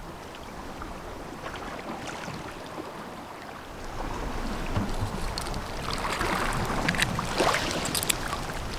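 Small waves lapping and washing against shoreline rocks in a calm cove. About halfway through, pebbles click and rattle and dry twigs crackle as small sticks are picked up from a pebble beach.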